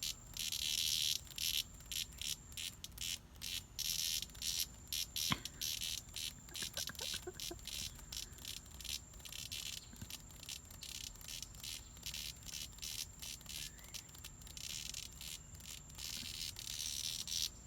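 A chorus of cicadas buzzing in rapid pulses, swelling and easing in louder stretches over a steady high whine.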